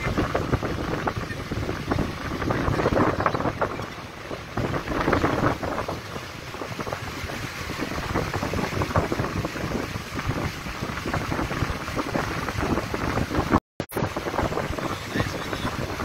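Wind buffeting the microphone and road noise from a moving vehicle driving along a flooded road, with the rush of water under the tyres, swelling and easing unevenly. The sound cuts out for a moment near the end.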